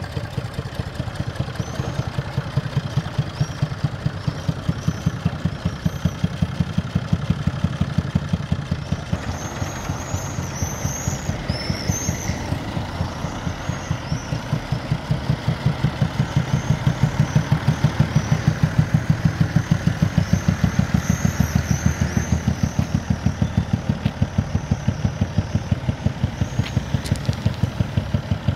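Old red Massey Ferguson tractor's engine chugging at low revs with an even beat of about four to five pulses a second as it is driven along the street, louder from about halfway through.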